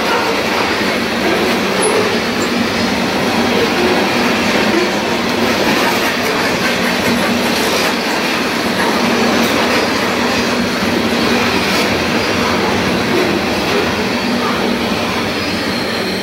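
Freight cars loaded with containers rolling past, a steady noise of steel wheels running on the rails with a few faint clicks.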